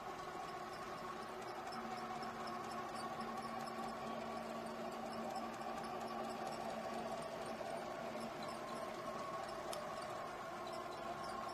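Steady hum of the small electric propulsion motors of the manned model tanker and its model tug. A lower steady tone comes in about two seconds in and drops out around eight seconds, as a motor is run up and then stopped. Faint high ticks sound over it.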